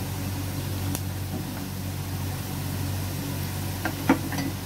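A steady low mechanical hum, with faint sizzling from onions and spices frying in oil in a pot. One sharp knock comes about four seconds in.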